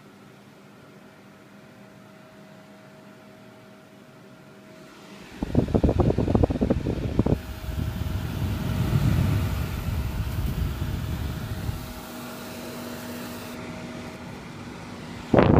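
Midea dehumidifier running with a steady hum of its fan and compressor. From about five seconds in, a loud, uneven rushing and buffeting, strongest in the low end: its air stream blowing across the microphone, settling back to a steadier hum after about seven seconds; the coils have just been cleaned and it moves more air.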